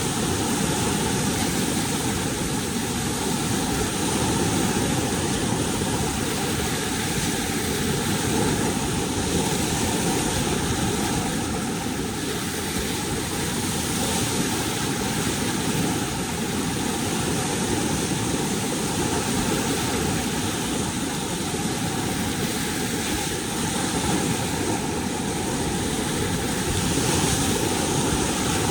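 Steady, loud rush of whitewater from a standing river wave below a dam gate, unchanging throughout.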